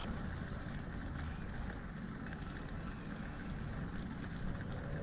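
Insects trilling in short high-pitched bursts, with a brief high note about two seconds in, over a low steady rumble.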